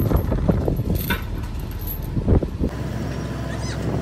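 Steel chains rattling and heavy metal clanking as a broken excavator undercarriage frame hangs from an excavator bucket, over a steady low diesel engine drone. The clatter stops abruptly about two-thirds of the way in, leaving the engine running.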